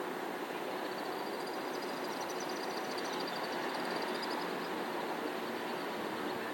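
Steady hum of distant city traffic. From about a second in to about four and a half seconds, a rapid high-pitched trill rises over it.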